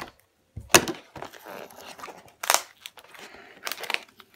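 Stiff plastic blister packaging being cut with scissors and pulled apart, crackling and crinkling, with a few sharp cracks, the loudest about a second in.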